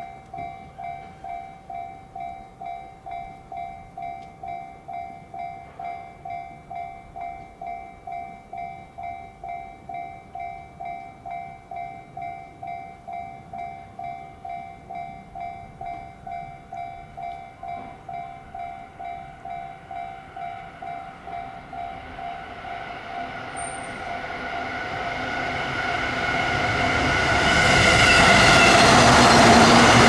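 Japanese level-crossing alarm ringing its electronic bell in rapid, even strikes, about two a second. From about 20 seconds in, an E233-series Chuo Line electric train comes closer and closer, its rumble swelling until it passes the crossing near the end and drowns out the bell.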